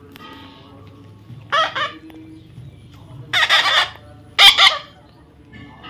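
Chicken calling loudly in three short squawks, about a second and a half, three and a half and four and a half seconds in.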